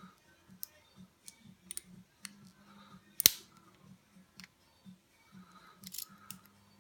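Lock pick and tension tool working the pin stack of a Maxus 50 mm padlock: a string of light metallic clicks and scrapes, with one sharp click about three seconds in and a small cluster near the end.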